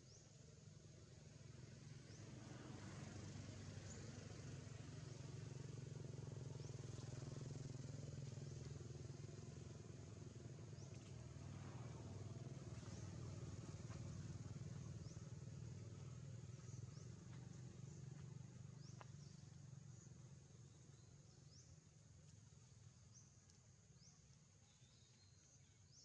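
Faint outdoor ambience. A distant motor vehicle's low hum swells over several seconds and fades away again, under a steady high insect drone and a few faint short chirps.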